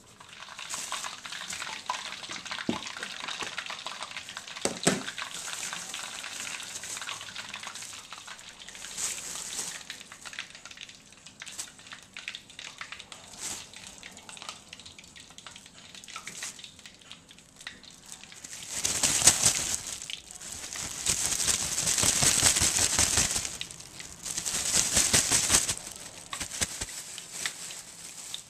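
A plastic bag rustling as cut okra is tossed in it to coat. Later come three loud bursts of crackling sizzle as coated okra goes into hot oil in a wok to deep-fry.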